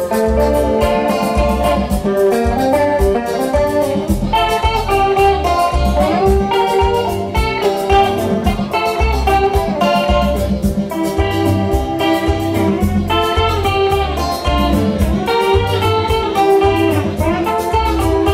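Live instrumental music: an electric guitar plays lead lines over a steady beat with a pulsing bass line and keyboard chords.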